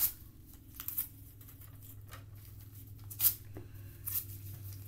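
Paper being torn up by hand in several short rips, the sharpest about three seconds in, over a steady low hum.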